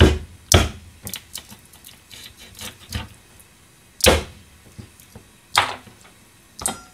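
Chopping a chicken carcass with a kitchen knife on a cutting board: five loud sharp knocks of the blade going through the bones, with lighter taps between them.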